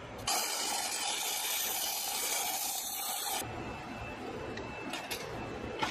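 Stick-welding arc from a 3/32-inch 6010 electrode at 60-70 amps tacking a 2-inch Schedule 80 steel pipe joint. It strikes about a third of a second in, hisses and crackles steadily for about three seconds, then breaks off, leaving faint crackles and ticks.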